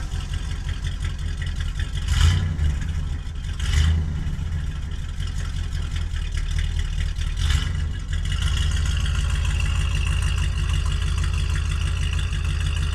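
1974 Cadillac Eldorado's 500 cubic inch V8 running just after a cold start, with three short louder swells about two, four and seven and a half seconds in. A steady high-pitched tone joins about eight seconds in. The engine now runs smoothly, with a disconnected vacuum hose refitted.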